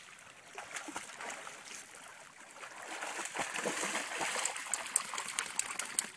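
A Labrador swimming, then wading out through shallow lake water. The splashing grows louder from about halfway, with sharp splashes near the end.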